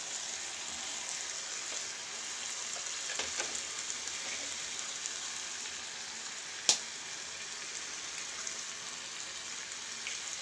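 Onion-tomato masala frying with a steady sizzle in a non-stick kadai. About two-thirds of the way in there is a single sharp tap, an egg being cracked against the pan.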